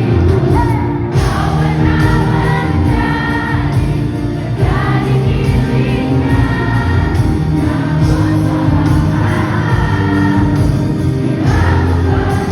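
Background music: a song with sung vocals and a choir-like backing over a steady low bass.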